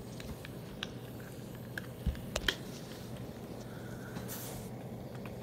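Handling noise from small plastic toy pieces and a cup on a wooden table: faint scattered clicks, with two light knocks about two seconds in, over a steady low hum.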